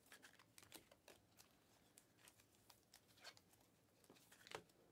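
Near silence with faint, scattered ticks and slides of glossy trading cards being flipped through by hand, one slightly louder tick near the end.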